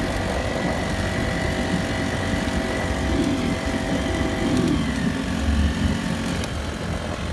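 Honda GX35 35cc four-stroke engine on a small outboard drive, running steadily at high throttle and pushing a pontoon boat through choppy water, with water rushing beneath. Its note sags slightly about five seconds in.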